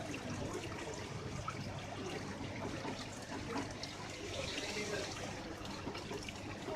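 Water running and trickling steadily in ornamental fish tanks.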